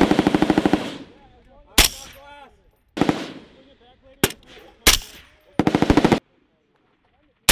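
Machine-gun fire: a rapid burst that cuts off just under a second in, then single sharp rifle shots spaced about a second apart. A second short machine-gun burst comes near the end, followed by one more single shot.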